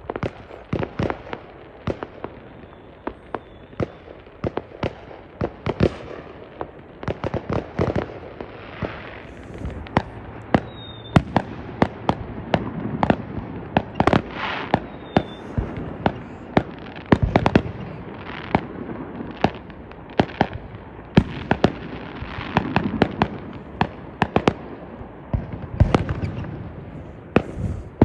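Fireworks going off in rapid, irregular succession: dozens of sharp bangs and pops, some overlapping, over a constant crackle.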